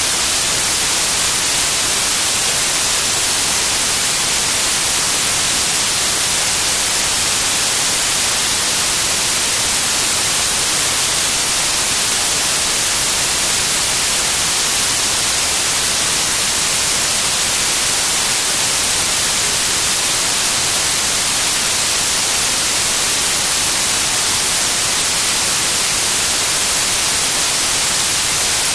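Loud, steady static hiss, brightest in the high frequencies, with no change.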